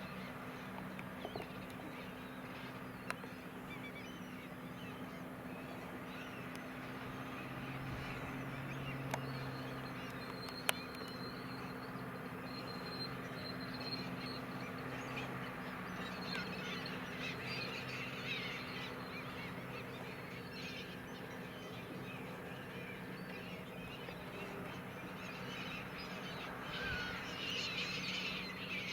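A large flock of gulls calling over the steady hum of a Valtra tractor's engine as it ploughs. The calls are densest near the end.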